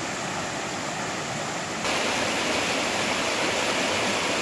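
Shallow, rocky river rapids rushing steadily over boulders, stepping up a little in loudness about two seconds in.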